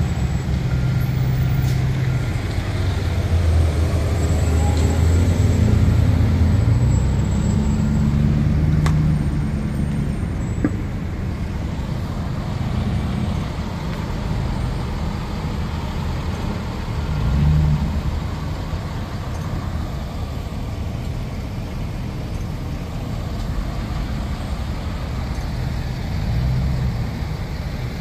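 Parked fire apparatus engines idling: a steady low rumble that swells a little and eases off, with no sharp events.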